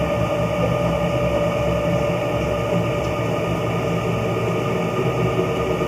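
CNC-converted Grizzly G0704 mill moving its table under motor drive: a steady mechanical whine of several tones over a low hum, shifting a little in pitch near the end.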